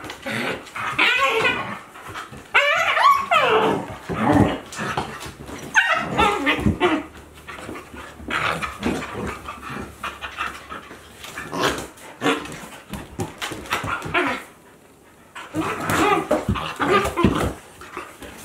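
Two Akita Inu, a young adult and a puppy, play-fighting: bursts of whining and yipping, some calls sliding down in pitch.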